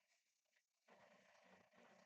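Near silence: faint room tone, with a soft even hiss that comes up about a second in.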